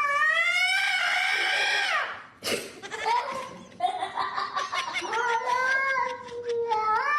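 A cat yowling in two long drawn-out calls. The first rises then falls over about two seconds; the second starts about three seconds in and is longer and wavering.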